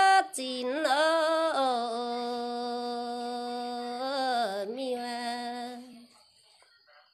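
A woman's solo voice singing a Red Dao folk song, drawing out long wavering notes with slides between them. The phrase fades away about six seconds in.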